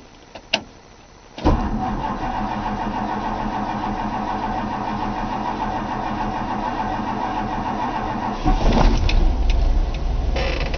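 1964 Ford Thunderbird's 390 V8 starting: it fires suddenly about a second and a half in and settles into a steady run. About 8.5 s in it gets louder, with a deeper rumble.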